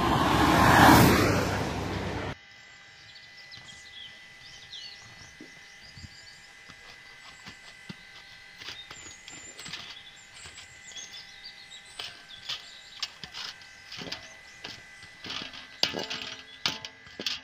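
A loud rushing noise cuts off abruptly about two seconds in. Then hands knead soft dough against a metal platter, making faint sticky squelches and small clicks, while birds chirp now and then.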